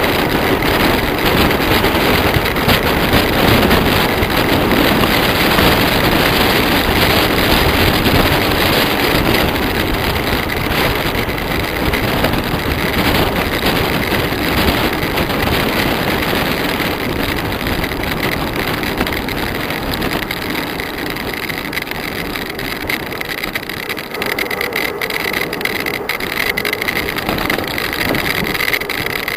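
Wind rushing over the microphone of a camera riding on a bicycle at speed downhill, a loud steady roar of air that eases off a little in the second half.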